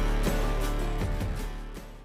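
Background music with a steady beat, fading out near the end.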